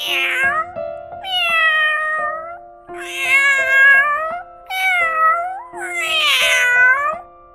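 Domestic cat meowing five times. Most of the meows are long and drawn out, each rising and then falling in pitch. Light background music with steady keyboard notes plays underneath.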